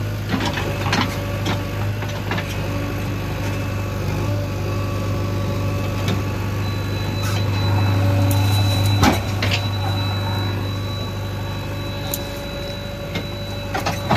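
JCB 3DX backhoe loader's diesel engine running steadily under digging load, with scattered knocks of the backhoe bucket striking rubble and stones. A thin high whine comes in about halfway through.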